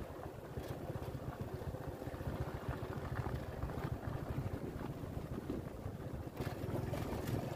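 Wind buffeting a phone microphone, a steady low rumble, with a few faint rustles near the end.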